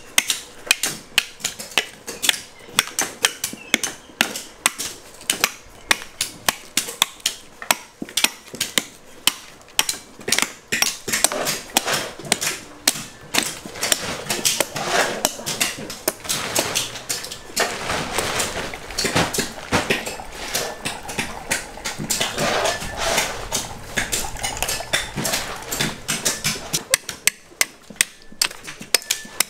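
Heavy knife repeatedly chopping into the shell of an apple coconut, sharp knocks about twice a second. About halfway through the strikes are joined by coconut water splashing into a basin.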